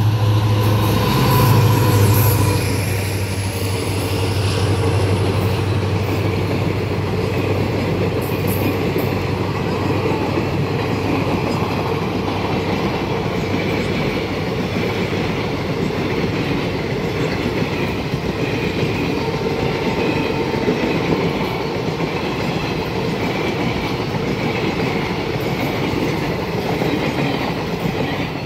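Diesel locomotive passing close by, its engine hum loudest in the first few seconds. Then a long rake of passenger coaches rolls past in a steady rumble of wheels on the rails.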